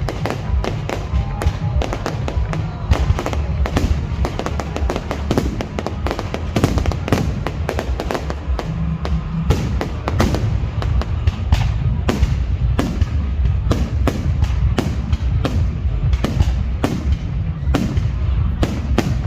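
Fireworks display over water: a dense string of sharp cracks and bangs, several a second, over a continuous low rumble.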